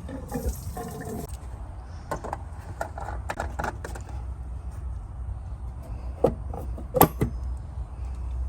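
Scattered light clicks and knocks, with two louder knocks about six and seven seconds in, over a low steady rumble.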